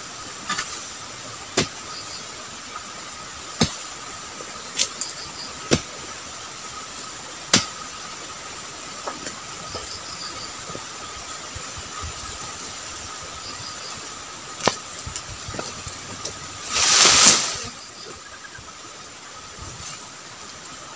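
Sharp, irregular chopping strikes of a long-handled palm chisel (dodos) cutting into oil palm frond bases, about a dozen blows spread over the first fifteen seconds. About three-quarters through comes one loud, second-long rustling crash, over a steady background hiss.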